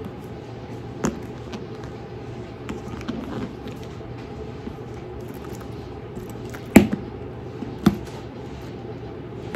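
Hands handling a leather handbag: soft handling noise with a few sharp clicks, the loudest about seven seconds in, over a steady low hum.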